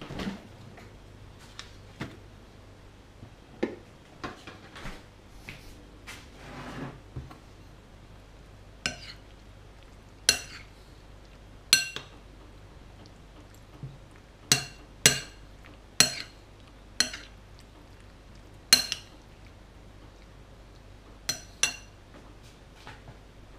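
Metal spoon clinking against a plate of boiled dumplings, about a dozen separate ringing clinks at irregular intervals over the second half. Softer knocks and rustling come before them.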